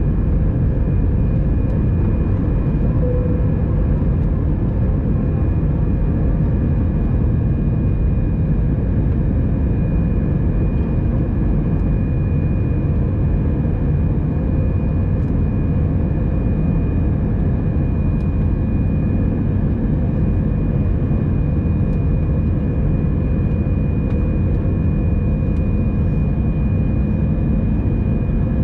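Airbus A320 cabin noise in the climb after takeoff: its CFM56 engines and the airflow make a steady, loud low rumble, with a thin steady whine above it.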